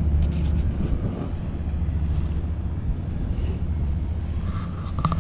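Wind buffeting the microphone as a steady low rumble while the parasail is towed through the air.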